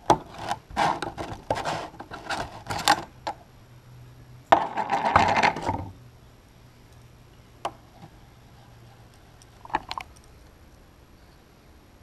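Screwdriver prying the metal lid off a small can of wood stain: a quick run of clicks and scrapes over the first three seconds. About halfway through comes a second of rustling as a paintbrush is pulled from its plastic sleeve, and a few light taps follow near the end.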